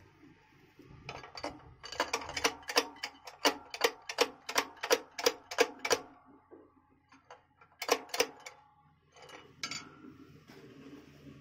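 Hand ratchet wrench clicking in a steady run of sharp metallic ticks, about three a second, then two more a couple of seconds later, as the clutch cover (pressure plate) bolts on the flywheel of a Nissan Diesel truck are run in.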